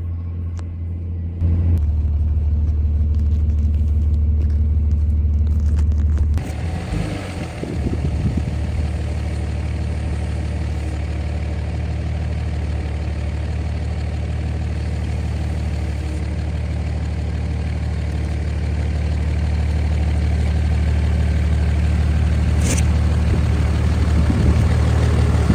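Pickup truck cab noise while driving: a steady low engine drone, joined about six seconds in by louder road and wind rush. A single sharp click comes near the end.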